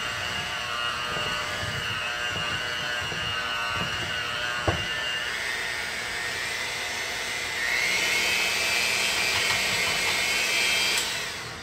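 Electric hand mixer running steadily, its beaters churning thick cookie dough in a glass bowl, with a single sharp knock about halfway through. About two-thirds through it gets louder and its whine changes pitch, then it winds down and stops near the end.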